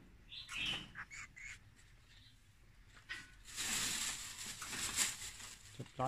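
Small birds at a hanging feeder: a few brief sharp sounds in the first second and a half, then a rush of wing flapping lasting about two seconds, starting about three and a half seconds in.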